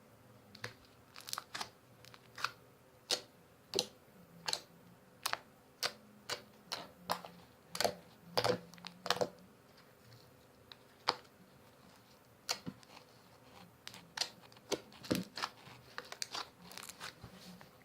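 Freshly activated glue slime being squished and pressed by hand, giving irregular sharp clicks and pops, about one or two a second, with a sparser stretch in the middle.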